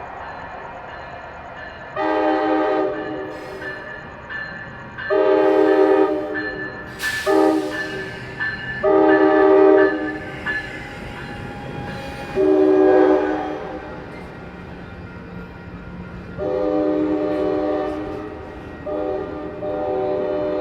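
Passenger locomotive's multi-note air horn sounding the grade-crossing signal in separate blasts: long, long, short, long, then more long blasts. A low rumble runs underneath, and a brief hiss comes about a third of the way in.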